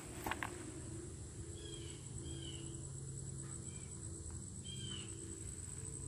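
Outdoor ambience: an insect's steady, high, finely pulsing trill, with a few short downward bird chirps and a low steady hum underneath. A couple of light knocks come just after the start.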